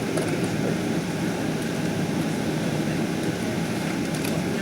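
Steady jet engine and airflow rumble of a Boeing 777-200ER heard from inside the passenger cabin, with a few faint ticks near the end.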